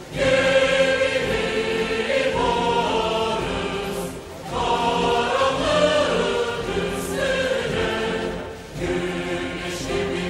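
Many voices singing together in unison, in phrases of about four seconds with short breaks between them.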